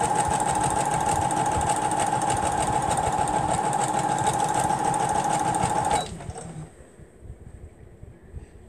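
Electric sewing machine running at a steady speed, stitching quilt pieces together with an even whine, then stopping abruptly about six seconds in.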